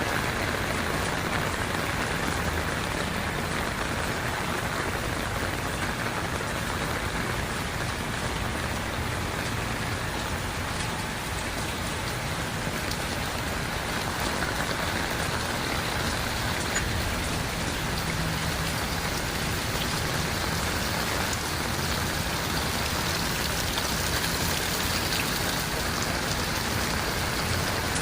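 Heavy rain falling steadily, a dense, even hiss of drops hitting surfaces.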